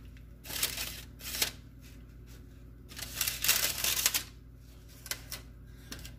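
Paper rustling and soft scraping as a paper-wrapped stick of butter is rubbed over the crusts of freshly baked rolls in a parchment-lined baking dish. It comes in a few short bursts, the longest about three seconds in, with a few light clicks near the end.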